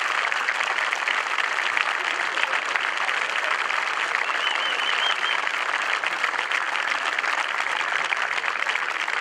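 Crowd applauding: a steady, dense patter of many hands clapping that neither builds nor fades.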